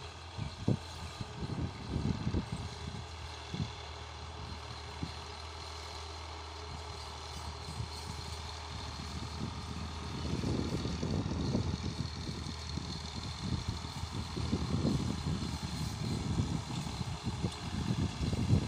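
Distant Fiat 480 tractor's three-cylinder diesel engine running steadily under load as it pulls a cultivator through the soil. Irregular low rumbling lies over the engine hum, heavier in the second half.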